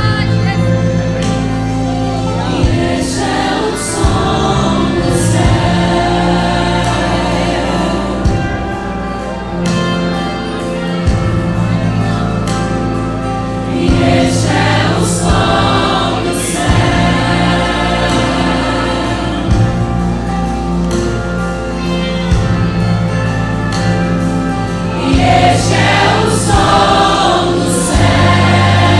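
Gospel worship song sung by a choir over instrumental accompaniment with a steady beat.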